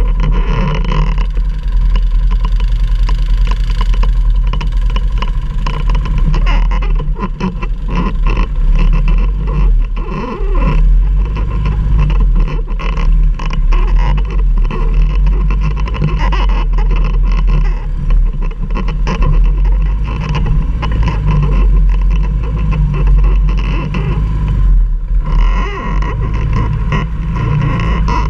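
ATV engine running with a steady low drone, overlaid with many quick knocks and rattles.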